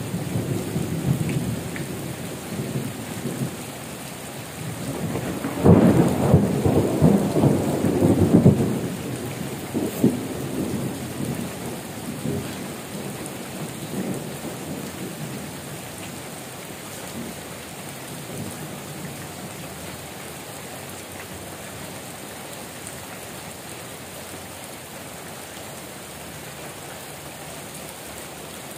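Heavy rain falling with rolling thunder. A loud rumble of thunder comes about six seconds in and lasts a few seconds, with weaker rumbles after it, then the rain goes on alone, steady.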